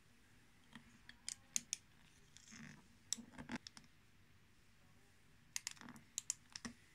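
Scattered light clicks and taps, the handling noise of a phone being gripped and fitted into a wall-mounted phone holder. A few come about a second in, a small cluster around three seconds, and a quick run near the end.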